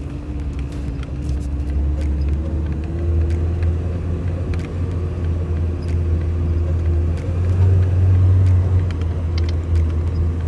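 Off-road vehicle driving, with a steady low rumble of engine and tyres and a faint hum that drifts slightly in pitch. The rumble swells briefly about eight seconds in, and scattered faint ticks sound over it.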